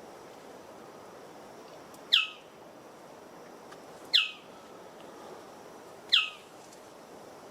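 A bird calling three times, about two seconds apart, each call a short loud note sweeping sharply downward in pitch, over a steady background hiss.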